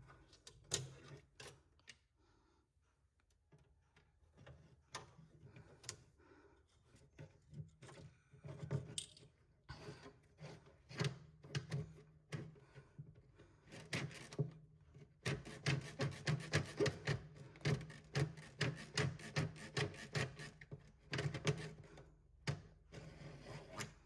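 A thin stick jabbed and scraped inside a refrigerator's plastic drain hole to clear out the waste clogging it. Scattered scrapes at first, then, from about the middle, a fast run of about three or four strokes a second.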